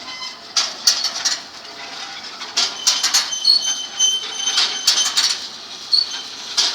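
Jean Tinguely's Heureka kinetic sculpture running, its metal parts scratching and squeaking: irregular high scraping strokes, with a held high squeal about halfway through.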